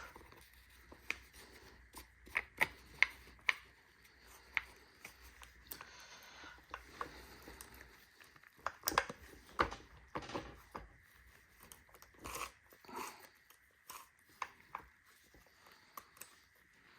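Scattered light clicks and taps, irregular and several per second at times, from hands fitting a chainsaw's side cover and threading its bar nut back on.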